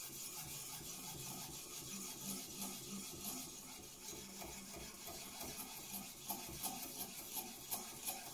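Naniwa Chosera 800-grit whetstone scraping back and forth along the steel edge of a kitchen knife during sharpening: a steady rasping, settling into regular strokes of a few a second near the end.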